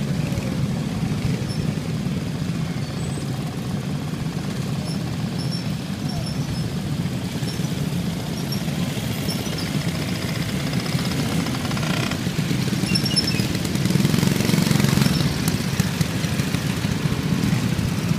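A procession of minibikes with small engines puttering as they ride past one after another. The sound swells about three-quarters of the way through as a bike passes close.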